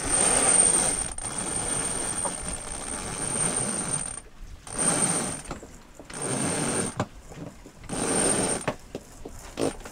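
A headsail line is hauled in by hand and runs rasping and whirring through the deck hardware as the headsail unrolls. There is one long pull, then three shorter pulls of about a second each.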